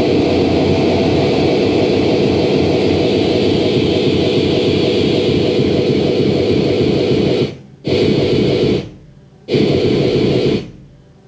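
Loud, dense static-like noise music from a live band jam, with no clear beat. It cuts out abruptly twice for under a second and comes back each time, then stops near the end.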